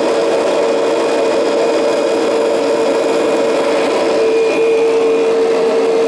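Kirby upright vacuum cleaner running steadily while being pushed over a rug, its motor making a constant hum with one steady tone over a rushing noise of air.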